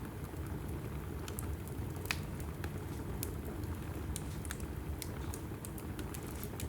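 Log fire burning in a fireplace: a steady low rumble of flame with frequent sharp crackles and pops from the burning wood.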